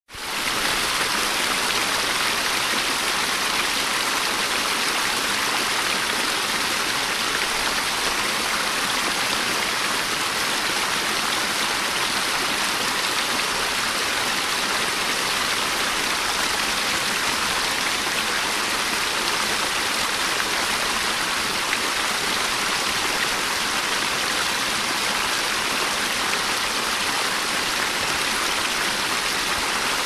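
Small waterfall: a steady, unbroken rush of falling and splashing water, mostly in the upper range with little low rumble, fading in at the very start.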